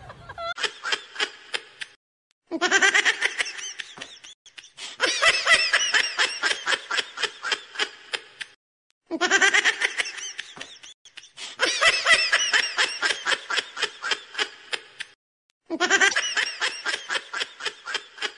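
High-pitched giggling laughter, a rapid run of 'ha-ha' pulses, in several stretches of about one to four seconds with short silent gaps. The same stretch recurs almost unchanged every six or seven seconds, as a looped laugh sound effect would.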